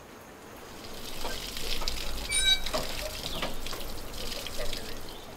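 Water and steam spitting and splashing from a Lombard steam log hauler's fittings. The sound builds about a second in and fades near the end, with a short ringing clink in the middle.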